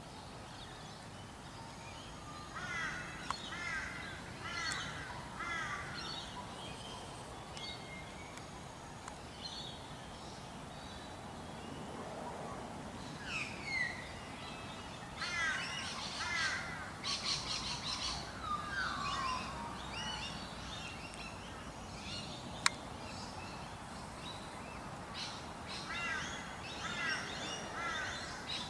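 Birds calling outdoors: several clusters of short, repeated, sweeping calls, such as a run of four evenly spaced calls early on and more bursts later, over a steady background hiss. A single sharp click comes about two-thirds of the way through.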